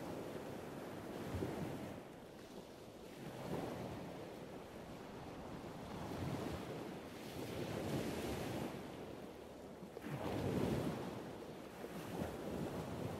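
Small sea waves breaking and washing onto the shore, the surf swelling and easing every few seconds.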